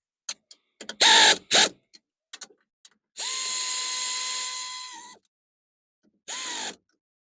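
Power drill-driver spinning small nuts and bolts on a replacement door lock actuator: a few sharp knocks and two loud short bursts, then a steady whir of about two seconds and a shorter half-second whir near the end.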